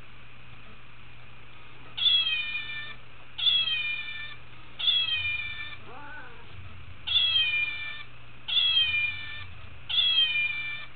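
Cat meowing: six near-identical calls of about a second each, in two runs of three, with a softer meow that bends up and down between the runs.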